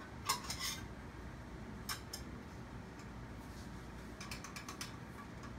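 Light clinks and clatters of small hard objects being handled, in short clusters: a few about half a second in, one near two seconds, and a quick run of them a little past four seconds.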